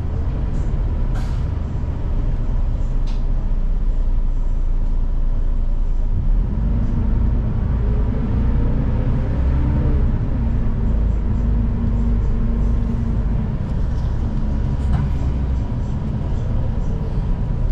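City bus running, heard from inside the cabin at the rear seat: steady engine and road rumble, the engine hum growing stronger from about six seconds in for several seconds, with a few brief clicks and rattles.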